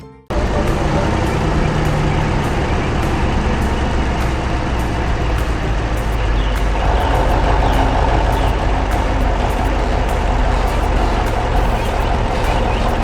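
Heavy logging truck's engine running steadily, a loud, even engine drone cutting in abruptly just after the start.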